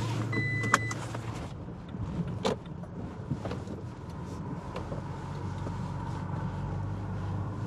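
Toyota pickup truck heard from inside the cab while driving: a steady low engine and road hum. A short high electronic beep sounds in the first second, and a couple of sharp clicks follow, about a second and two and a half seconds in.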